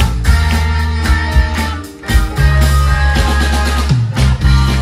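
Live rock band playing: electric guitar, bass and drum kit with sustained chords. The music drops away briefly just before two seconds in and then comes back in full.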